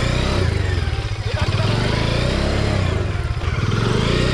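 Motorcycle engine running loud and close, its revs rising and falling.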